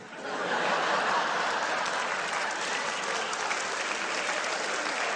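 Live audience applauding, a steady round of clapping that swells in within the first half second.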